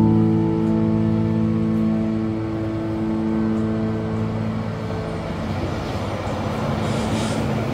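A sustained musical chord fades out over the first few seconds, giving way to road traffic noise: vehicles running by, growing louder toward the end.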